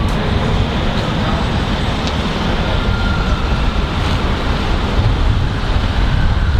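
Steady low rumble of an approaching freight train hauled by two VL-class diesel locomotives, still some way off down the line.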